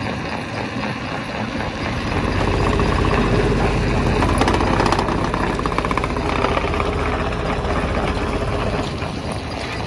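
Stone crusher running under load: a heavy, steady engine drone with a rapid clatter of rock, growing louder about two seconds in and easing slightly near the end.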